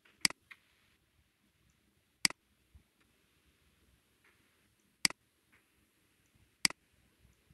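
Four single computer mouse clicks, sharp and spaced one to three seconds apart, over a quiet room.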